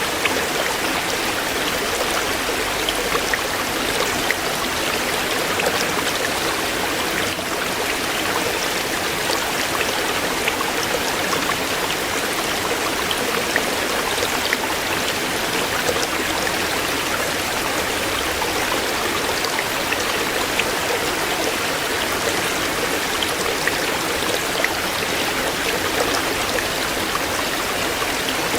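Stream water flowing and splashing over stones, a steady rushing with many small droplet splashes throughout.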